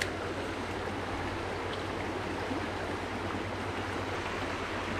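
Shallow mountain river rushing steadily over rocks and riffles.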